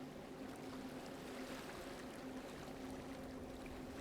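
Soft, steady wash of sea surf, with a faint low hum underneath.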